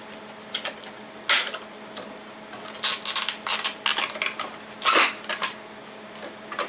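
Clear rigid plastic packaging case being pried open and handled as the SSD is taken out: a string of sharp plastic clicks and crackles, with the loudest snaps about a second and a half in and about five seconds in.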